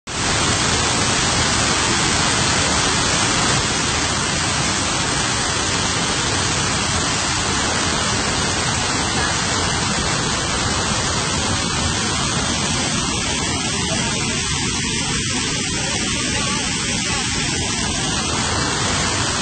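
Waterfall pouring down a rock face and white water rushing over boulders: a loud, steady rush.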